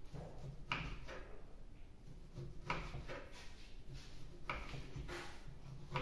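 Kitchen knife cutting oranges: three short strokes about two seconds apart.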